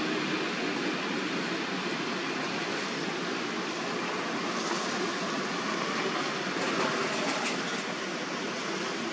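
Steady, even outdoor background noise with no distinct source, with a few faint clicks about two-thirds of the way through.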